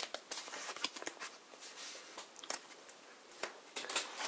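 Hands handling trading cards: soft, scattered ticks and light rustles of cards being moved and stacked.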